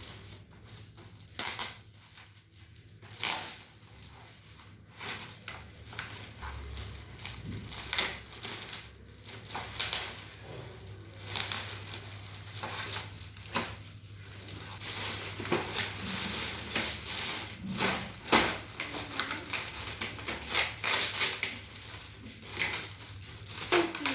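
Gift-wrapping paper being torn and crumpled as a large present is unwrapped: irregular rustling, crinkling and tearing.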